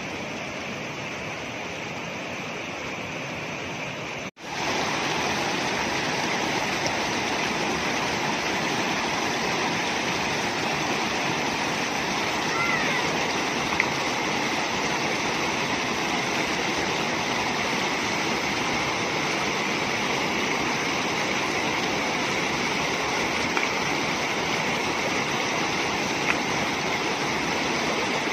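Rushing water of a small mountain stream cascading over rocks, a steady, even noise. It cuts out briefly about four seconds in and then comes back louder.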